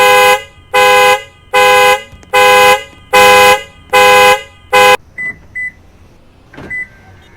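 Car alarm honking the car's horn in a steady pulse, a little faster than once a second. The honking stops about five seconds in, followed by two quick high chirps and one more a second later.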